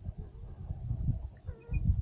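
A gusty, irregular low rumble, with a few faint bird calls over it in the second half.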